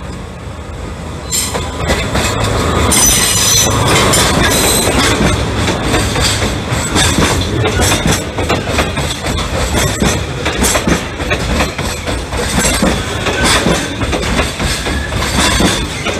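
Diesel-hauled container freight train passing close by. It grows louder about two seconds in, with high-pitched wheel squeal over the next couple of seconds. The container wagons then roll past with a steady rumble and rapid clatter of wheels over the rail joints.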